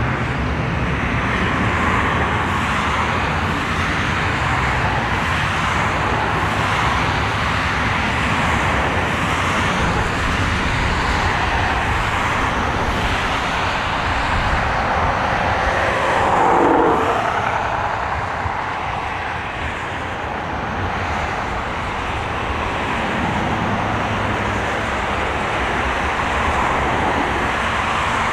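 Airbus A380's four jet engines running steadily on final approach. There is a brief falling whine and a peak in loudness a little past the middle.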